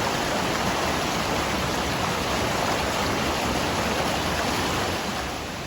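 Forest stream water flowing, a steady, dense rush that eases slightly near the end.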